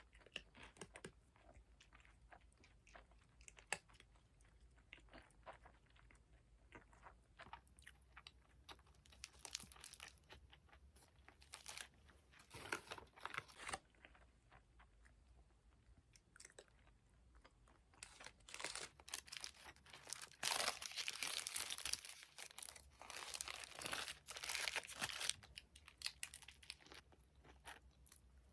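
Chewing and crunching of food close to the microphone: many short crunches, densest and loudest from about two-thirds of the way through.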